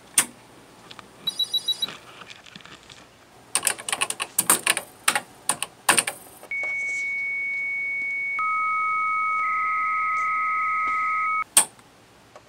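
Keys typed on a computer keyboard, then a 300-baud modem's carrier tones: one steady high tone, joined about two seconds later by a second, lower tone, both cutting off suddenly.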